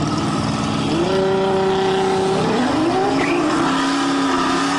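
Nissan GT-R and a classic muscle car launching together off a drag-race start line, engines revving hard as they accelerate away. The engine pitch climbs, drops sharply at a gear change about two and a half seconds in, then climbs again.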